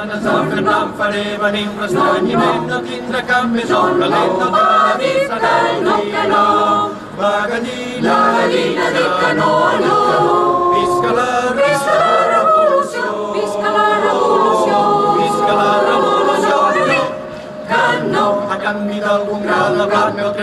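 A crowd of many voices singing together, with short breaks between lines about seven seconds in and again near the end.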